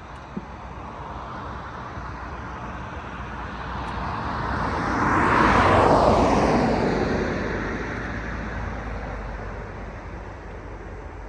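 A vehicle passing by: a rising rush of engine and road noise that peaks about halfway through, then drops in pitch and fades away.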